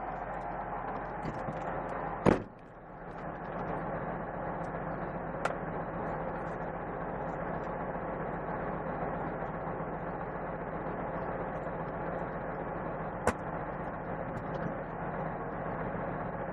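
Semi truck's diesel engine idling steadily, heard from inside the cab. About two seconds in there is one loud sudden burst, and sharp clicks come about five seconds in and again later.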